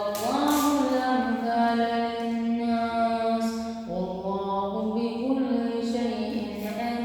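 A man reciting the Quran in melodic tajweed style, holding long drawn-out notes with ornamented turns. One phrase ends and a new one begins about four seconds in.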